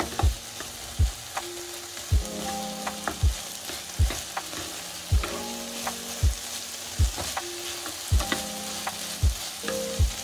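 Chicken mince sizzling in a frying pan as it is stirred and scraped with a spatula. Background music plays over it, with a steady kick-drum beat about once a second and held chords.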